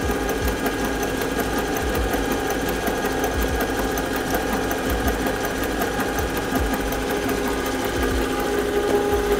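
Bosch inline diesel injection pump turning slowly on a Bosch test bench, its test injectors clattering in a fast, even rhythm as it delivers fuel under pressure. This is the sound of a pump that has been bled of air and is delivering properly. A steady hum joins near the end.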